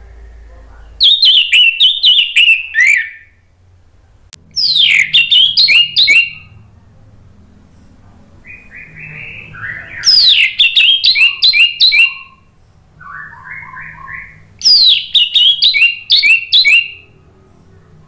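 Orange-headed thrush singing loudly in four bursts of quick, sharp, falling notes, each about two seconds long, with softer, lower phrases before the last two bursts.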